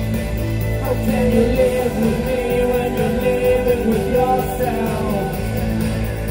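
Live rock band playing: electric guitar, bass, drums and keyboard at full volume, with a male lead vocal that comes in about a second in and holds a sung line until about five seconds in.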